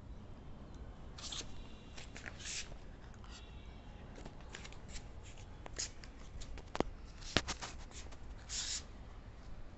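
A German Shepherd puppy moving about on a concrete floor: quiet scattered clicks and short scratchy rustles, with two sharper clicks about seven seconds in.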